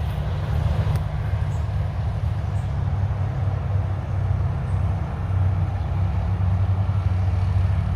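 A motor vehicle's engine running close by with a steady low rumble as it moves slowly past.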